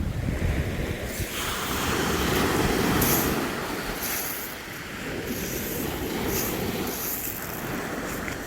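Waves washing on a shingle beach, with wind rumbling on the microphone.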